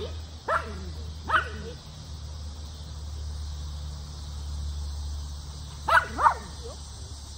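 A dog barking: two short barks near the start, then a quick pair about six seconds in, over a steady low hum.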